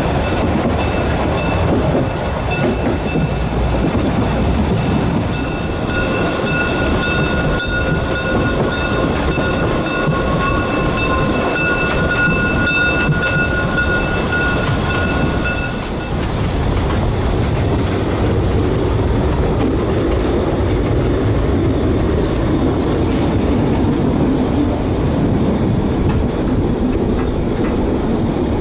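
Carriages of a 750 mm narrow-gauge steam train rolling along the rails, with a steady rumble and regular clicking. For roughly the first half a high, ringing squeal from the wheels runs over it, then stops suddenly, leaving the plain running noise.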